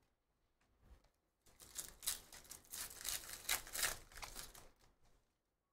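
Foil trading-card pack wrapper being torn open and crinkled by hand: a run of crackling rustles starting about a second and a half in and dying away near the end.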